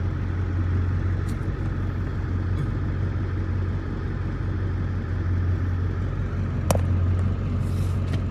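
Steady low drone of engine and road noise, heard from inside a vehicle as it drives, with one sharp click a little under seven seconds in.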